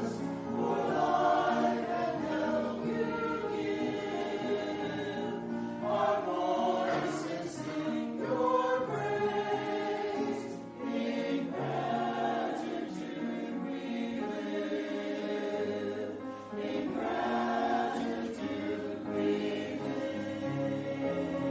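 A choir singing in several parts, holding long notes that change in steps from chord to chord.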